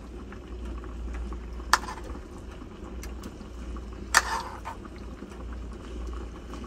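Chicken broth boiling in a saucepan on an electric hot plate, with a spoon knocking sharply against the pans twice as rice is scooped in.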